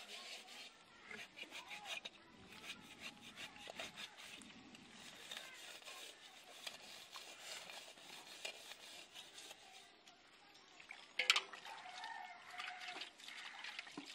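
Metal cooking pots being scrubbed by hand, a run of short rasping scrubbing strokes, with one sharp clank of a metal vessel about eleven seconds in.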